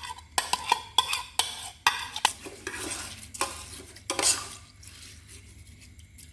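Spoon stirring rice and stock in a metal pot, clinking and scraping against the sides, busiest in the first four seconds and quieter after.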